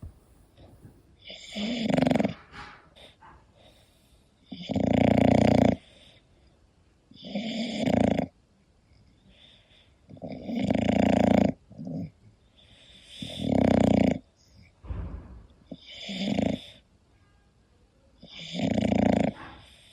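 English bulldog snoring in its sleep: loud rasping snores in a steady rhythm, one every two to three seconds, about seven in all, with quiet breathing between them.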